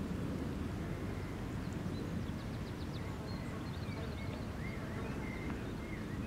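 Outdoor ambience: a steady low rumble, with faint bird calls above it from about a second and a half in, first a quick run of high chirps, then several short slurred whistles.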